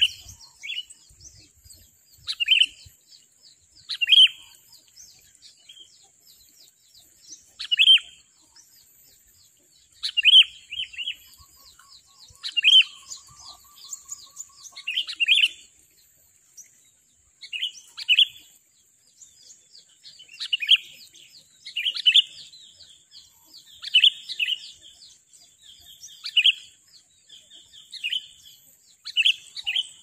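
Sooty-headed bulbuls (kutilang) calling: short call phrases repeated every one to two seconds, with a steady high-pitched drone behind them.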